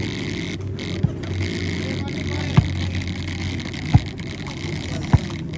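A volleyball being struck four times in a rally, short sharp thumps a little over a second apart, the second and fourth the loudest, over a steady murmur of spectators.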